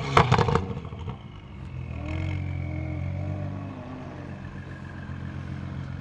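BMW M2 F87's turbocharged straight-six through an Armytrix exhaust: a quick run of sharp crackles and pops right at the start as the revs fall, then the engine settles to a steady idle.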